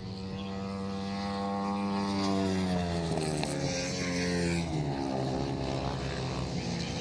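Long-track racing motorcycle engines at full throttle. The engine note holds high, then drops in pitch from about three seconds in, and another engine comes in lower near the end.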